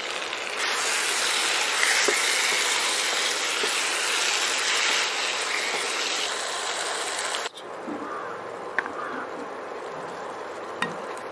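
Prawns frying in onion-tomato masala in a non-stick pan, a loud steady sizzle. It drops suddenly to a much quieter sizzle about seven and a half seconds in, with a few light ticks after that.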